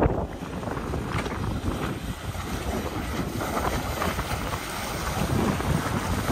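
Wind buffeting the microphone over the rush and splash of water under a windsurf board moving across the water.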